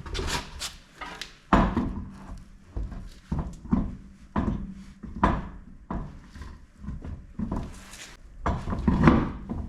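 A string of irregular knocks and clunks from a car wheel being handled and fitted back onto the hub, over a faint steady hum.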